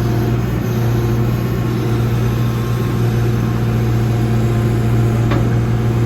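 John Deere backhoe's diesel engine running at a steady speed, with a brief light click about five seconds in.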